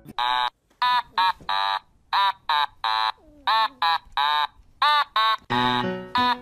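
A run of about a dozen short, high squeaks, each rising and falling in pitch, in an uneven rhythm. Near the end, music with plucked strings starts up under them.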